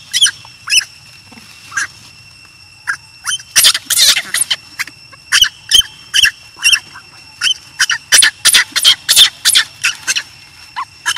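Baby macaque crying: a string of short, high-pitched squealing cries, a few scattered at first, then coming several a second from about three and a half seconds in. The cries are those of an abandoned infant, which the uploader puts down to hunger for milk. A faint steady high tone runs underneath.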